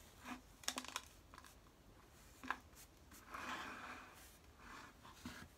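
Hands handling potting soil and a plastic item on a wooden potting bench: faint rustling and scraping, with a few light clicks and a longer scrape about three seconds in.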